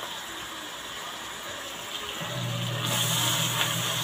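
Hot oil sizzling in a metal wok, growing louder about three seconds in as shredded cabbage is dropped into the pan. A steady low hum joins about two seconds in.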